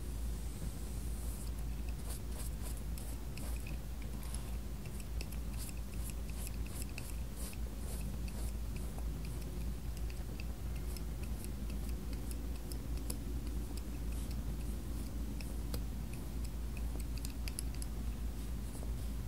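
Flat paintbrush scraping acrylic paint across sketchbook paper and dabbing on a palette plate: scattered dry scratches and small clicks, over a steady low hum.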